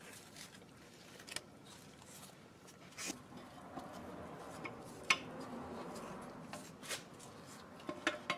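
Faint metallic clicks and clinks of steel transmission parts being worked loose inside the transmission case, several sharp clicks a second or two apart, as the low-reverse band and drum are freed.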